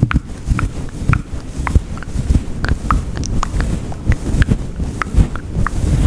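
Fluffy furry microphone windscreen being rubbed close to the mic, giving an uneven low rumbling and thudding, with many small sharp clicks over it.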